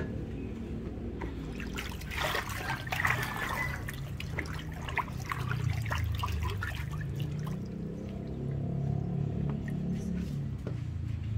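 A hand stirring and swishing bath water in a plastic baby bathtub, with small splashes and drips busiest from about two to seven seconds in, over a low steady hum.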